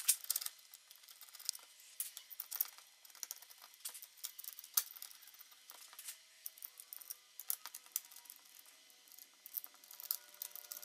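Irregular light metallic clicks and clinks of an Allis-Chalmers WD-45 hand clutch assembly being handled and fitted, with faint ringing of metal that grows near the end.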